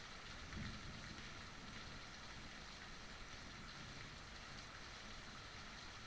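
Steady rain falling, an even hiss of drops, with a faint low thud about half a second in.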